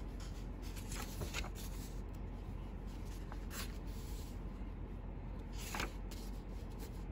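Paper pages of a notebook being turned and brushed by hand, making a few soft rustles over a faint steady hum.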